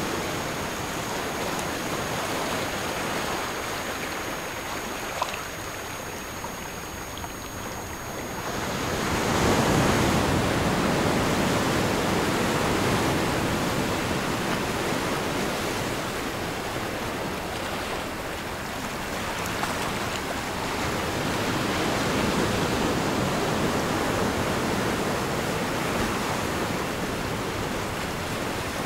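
Recorded ocean surf, a steady wash of noise that swells about nine seconds in and again later. Two faint thin high tones sound over it and stop about ten seconds in.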